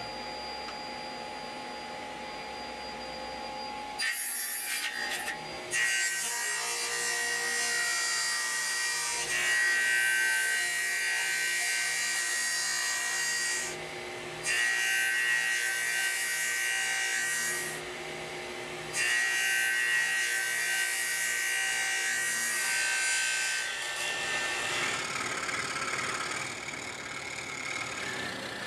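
Table saw cutting wood in three passes of several seconds each, with short pauses between; the saw runs more quietly for the first few seconds before the first cut.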